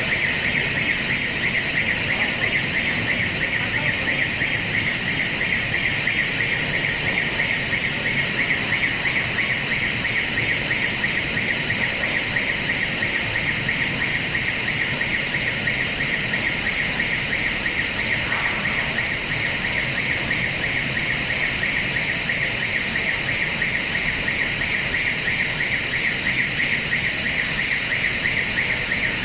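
Hanger-hook shot blasting machine running: a steady machine noise with a high, even whine on top.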